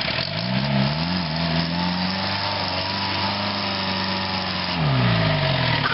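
Old flat-fender jeep's engine revving hard at full throttle as it pushes through deep mud, pitch rising in the first second, held high, then dropping off near the end. The tyres spin and churn the mud.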